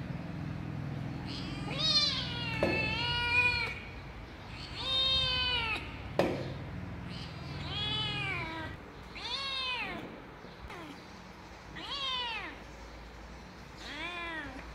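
Kittens meowing over and over, about seven high calls that each rise and fall, one near three seconds in drawn out longer. A sharp click comes about six seconds in.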